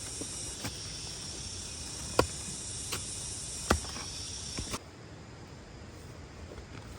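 Steady high-pitched insect chorus with several sharp knocks, two of them louder; the chorus cuts off suddenly about two-thirds of the way through.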